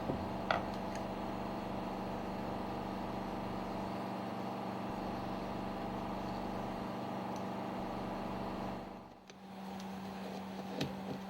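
Steady machinery hum with a strong low drone, broken by a few light metallic clicks about half a second in and again near the end. The hum drops out briefly just after nine seconds, then comes back.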